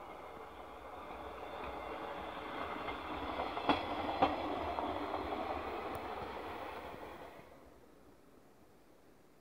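ČD class 810 railbus passing: its diesel running and its wheels rumbling on the track, growing louder to a peak about four seconds in, then fading away from about seven seconds. Near the peak come two sharp clicks half a second apart, like wheels crossing a rail joint.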